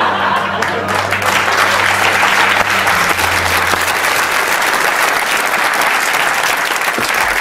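Studio audience applauding, a dense and steady clapping that holds at full strength throughout.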